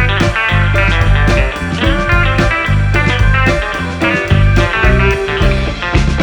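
Background music: a guitar-led band track with drums and a steady beat.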